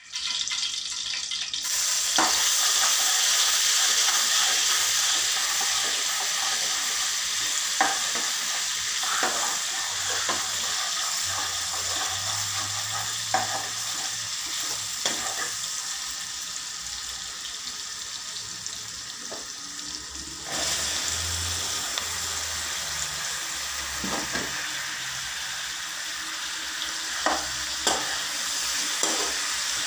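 Hot oil sizzling in a nonstick wok as ginger garlic paste fries and is stirred with a metal spatula, with scattered scrapes and clicks of the spatula against the pan. About two-thirds of the way through, the sizzle turns suddenly louder and fuller as chopped onions, potatoes, carrots and red bell pepper go into the oil and are stirred.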